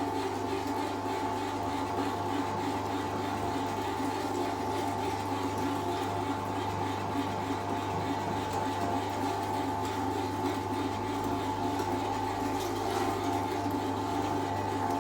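VEVOR stainless steel electric meat grinder running steadily, its motor humming as it grinds meat for meatballs.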